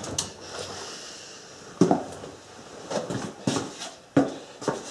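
Handling noise from gloved hands working at the lathe: about five sharp knocks and clinks spread over a few seconds.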